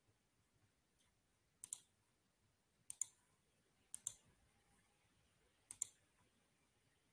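Computer mouse clicking four times at uneven intervals, each click a quick double tick, over near silence.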